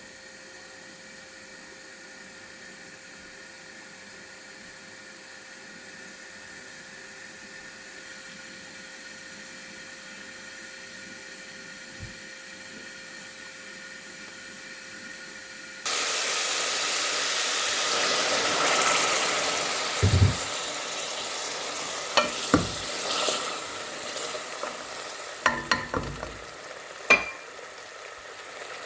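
A faint steady hiss, then about sixteen seconds in food goes into hot oil in a pan and it breaks into loud sizzling that slowly settles, with several sharp knocks of a spatula against the pan as it is stirred.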